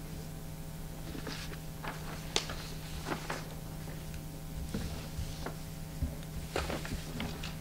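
Quiet meeting-room tone with a steady low hum, broken by scattered small clicks and paper rustles as sheets are handled at the table.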